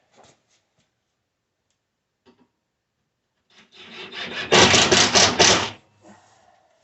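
A power driver sinks a 1-inch screw through the drawer's plywood into the pine drawer face: a loud rasping, grinding run of about two seconds that grows louder toward its end, after a couple of light clicks.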